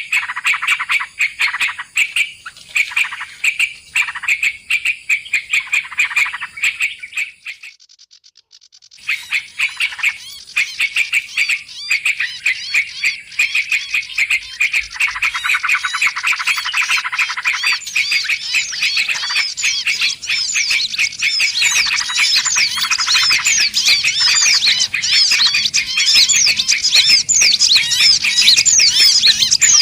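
Bird-lure recording of small songbirds: rapid, dense chirping and twittering from several birds layered together. It breaks off for about a second a quarter of the way in, then grows denser and louder toward the end. It is a lure call meant to bring small birds down to perch.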